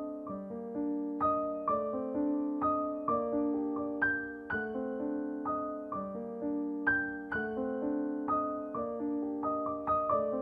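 Background piano music: a melody of struck notes over held lower notes, in a steady rhythm.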